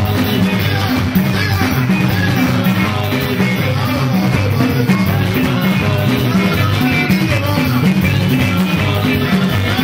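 Live band music: electric guitar and drum kit over a steadily pulsing bass line, with a voice singing over it.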